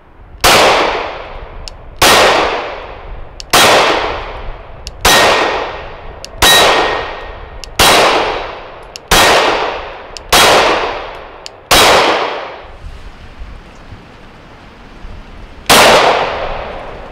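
Nickel-boron coated Glock 19 9mm pistol firing ten shots: nine at a steady pace about one and a half seconds apart, then a pause of about four seconds and one more shot. Each shot is followed by an echo that dies away over about a second.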